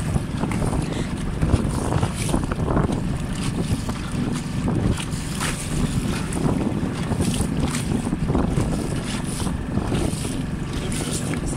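Wind buffeting the microphone in a small open boat on the water, a steady rumble with gusts, mixed with water splashing against the hull.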